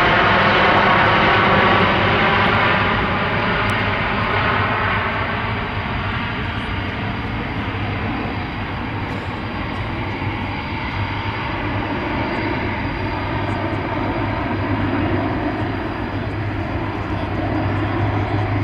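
Engines of a large Airbus aircraft flying a display pass. The sound is loudest in the first two seconds or so, then eases into a steady drone with a constant low hum underneath.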